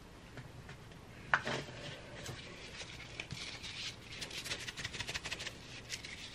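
Disposable-gloved hands rubbing seasoning into the skin of a raw whole chicken: faint rubbing and glove crinkling, with a sharp tick about a second and a half in and a run of small crackles from about two seconds on.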